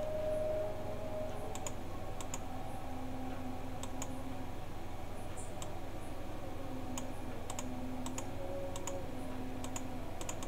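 Computer mouse clicking at irregular intervals, a dozen or so sharp clicks, over a steady low background hum.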